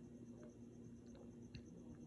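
Near silence: a faint steady hum with a few soft, scattered clicks.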